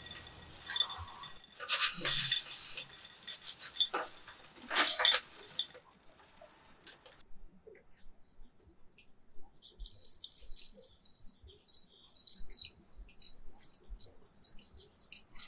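Raw almonds poured into a glass bowl, clattering against the glass and each other in two loud bursts in the first five seconds. After a quiet pause, about ten seconds in, water is poured in a thin stream onto the almonds, trickling and splashing in quick, high patters.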